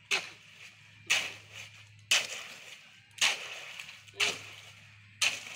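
A hoe chopping and scraping through concrete mix spread on the ground: six sharp strikes, about one a second, each trailing off in a short gritty scrape.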